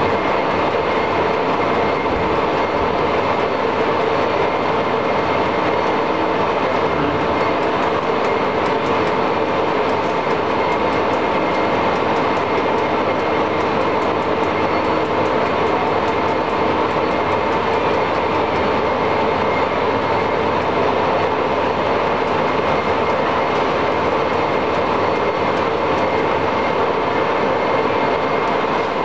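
A Monarch 36NN heavy-duty engine lathe running under power. Its geared headstock and drive train run with a steady, even mechanical whir and a faint steady whine.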